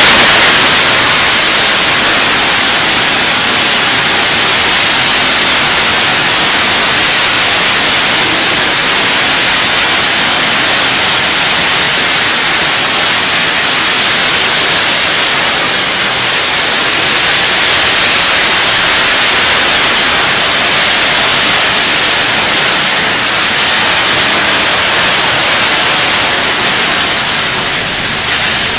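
Hailstorm: heavy hail and rain coming down in a dense, loud, steady hiss.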